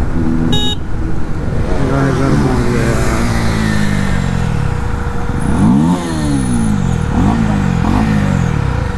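Motorcycle engine heard from the rider's seat, its revs falling steadily as the bike slows, then three short throttle blips near the end, over wind noise.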